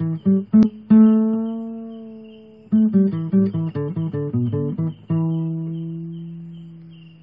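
Intro music on a plucked guitar: quick runs of notes, each ending on a long note left ringing and fading away, twice over.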